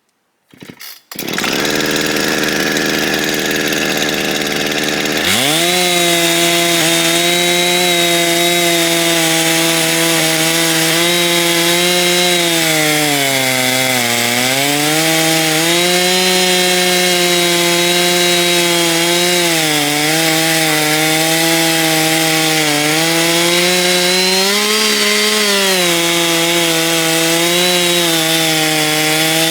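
Chainsaw on an Alaskan chainsaw mill comes on about a second in, is throttled up sharply about five seconds in, and runs at high revs while milling a log into lumber. Its pitch sags now and then as the engine bogs under the load of the cut, most deeply about halfway through.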